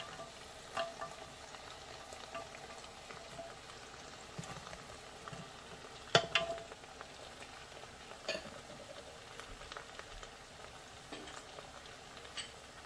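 Turkey breast sizzling steadily in the hot inner pot of a Chefman electric pressure cooker on its sauté setting. A few light knocks come as carrot slices are placed into the pot, the sharpest about six seconds in.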